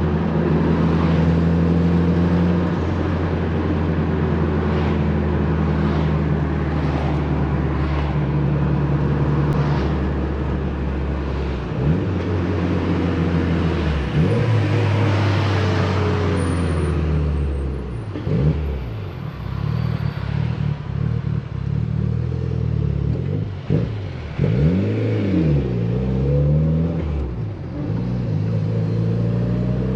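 Mitsubishi Lancer Evolution VIII's turbocharged four-cylinder engine under way: a steady drone for the first ten seconds or so, then the revs falling and rising several times, as with gear changes.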